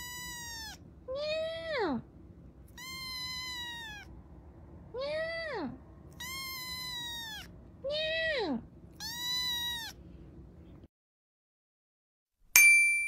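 A kitten meowing repeatedly, about seven high meows. Long, level meows alternate with shorter ones that drop sharply in pitch. Near the end, after a short silence, a single bright chime rings out.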